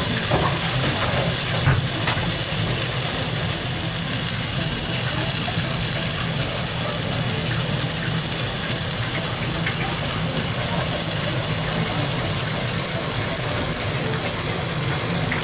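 Breaded wagyu beef cutlet slices sizzling steadily in oil on a hot iron plate, over a steady low hum, with a few light taps of chopsticks on the plate in the first couple of seconds.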